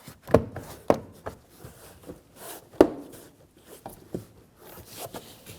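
A Subaru XV Crosstrek's plastic inner door panel being pressed onto the door, its retaining clips knocked home one after another: a series of sharp, irregularly spaced knocks.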